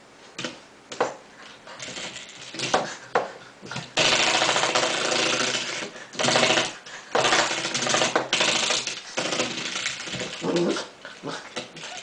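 Spring door stopper being batted and bitten by a puppy, twanging in a few short boings, then from about four seconds in rattling in long buzzing bursts.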